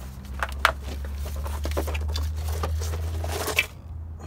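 Rustling and clicking handling noise over a steady low rumble, with one sharp click about half a second in; the rumble and rustling stop suddenly near the end.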